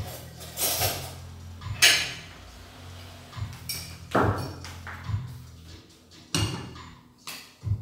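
Kitchen handling noises: several separate knocks and clatters, a second or two apart, of a plate and utensils being picked up and set down, over a low steady hum.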